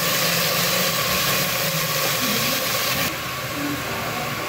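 Raw chicken pieces sizzling in hot oil in a stainless steel pot: a steady hiss that eases a little about three seconds in.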